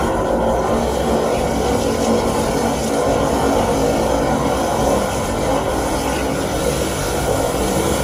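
Drain-cleaning machine running steadily, its frayed cable spinning and churning the water inside the drain pipe.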